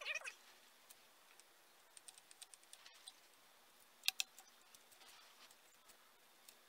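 Faint clicks and taps of hand tools working on a motorcycle engine's cylinder head during reassembly: a quick run of light clicks about two seconds in, then two sharp metal clicks about four seconds in. A brief squeaky chirp sounds at the very start.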